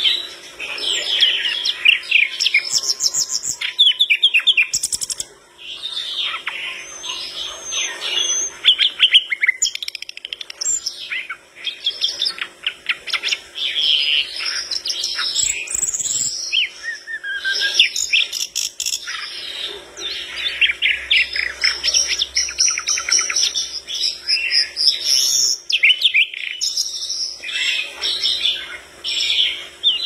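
Brown-chested jungle flycatcher (sikatan londo) singing vigorously: a long, varied run of quick chattering and trilling phrases with only brief pauses.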